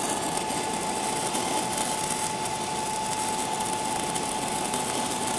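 Stick-welding arc of a 6010 electrode burning steadily at about 80 amps: an even, continuous crackle and hiss, with a thin steady whine underneath. The rod is being pushed and stitched through a ground-out downhill root pass to repair it.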